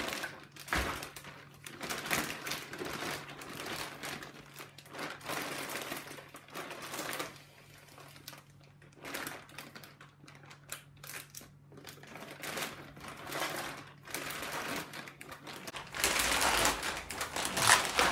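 Clear plastic brining bag crinkling and rustling as hands gather and press it around a chicken in brine, in irregular bursts, louder near the end.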